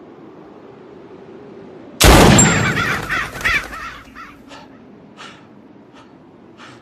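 A single gunshot about two seconds in, followed by crows cawing: a burst of overlapping caws, then separate caws about every second, fading away.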